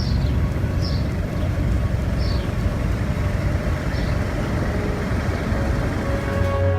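Steady wind and surf noise at the beach, heaviest in the low end, with wind rumbling on the microphone. A few short, high chirps sound over it, about a second or so apart, in the first four seconds.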